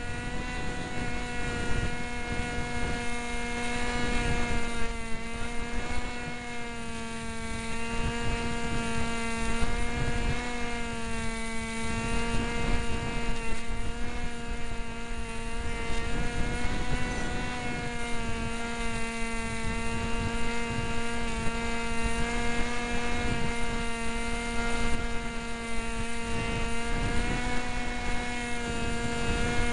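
Cox SkyCruiser RC plane's motor and propeller running at full power, a steady buzzing hum that wavers slightly in pitch, heard from the onboard keychain camera. Wind buffets the microphone underneath.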